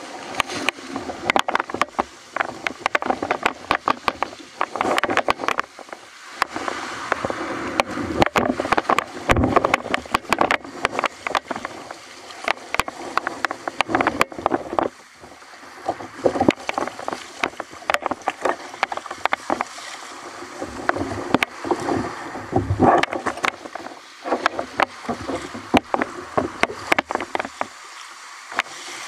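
Water splashing and slapping against a fishing kayak's hull as it is paddled out through waves, with many irregular sharp knocks and clicks.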